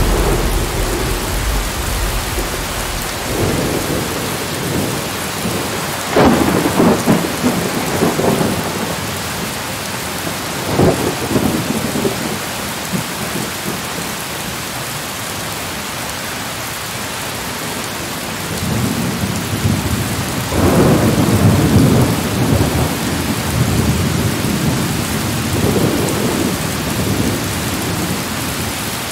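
Steady rain hiss with low rolling rumbles of thunder, swelling up about six seconds in, briefly near eleven seconds, longest from about nineteen to twenty-three seconds, and again around twenty-six seconds.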